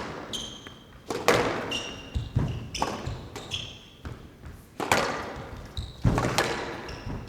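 A squash rally: the ball is struck hard again and again, cracking off the racket and walls with an echo in the enclosed court, while court shoes give short high squeaks on the wooden floor between shots.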